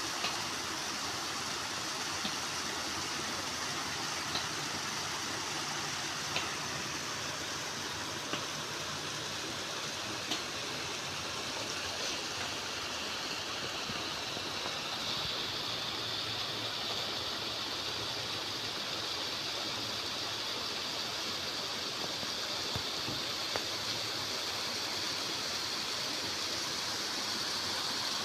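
Water of a small stream running steadily over its bed, an even rushing sound, with faint ticks about every two seconds.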